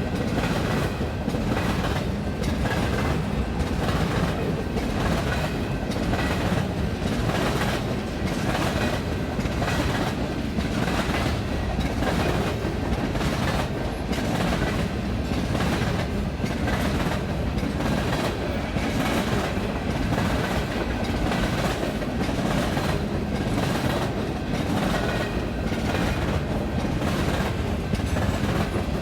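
Canadian Pacific train rolling past steadily, its wheels clicking over the rail joints in an even, repeating rhythm over a continuous rumble.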